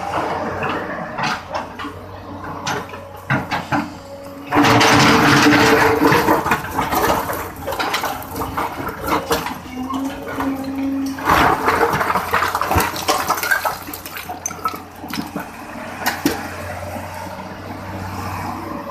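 Hydraulic excavator at work: its diesel engine running with a steady low hum, broken by two loud rushing spells of a few seconds each, about a quarter of the way in and just past the middle, as the bucket moves earth.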